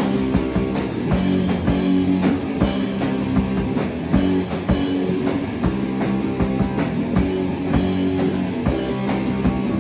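Rock band playing live in a room: drum kit, electric bass and electric guitars together, with a steady driving beat.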